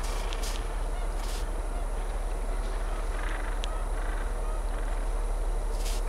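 Steady wind noise on the microphone, with two short honking calls from gentoo penguins a little past the middle. A few sharp clicks come near the start and near the end.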